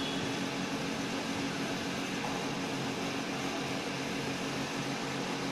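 A steady low hum with a broad hiss, unchanging throughout.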